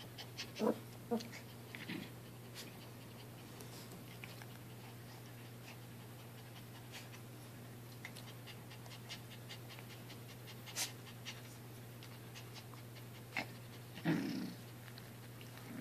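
Two Maltese puppies play-mouthing each other while lying on their backs on carpet: scattered small clicks and rustles, with a few short soft dog noises, the loudest about fourteen seconds in. A steady low hum runs underneath.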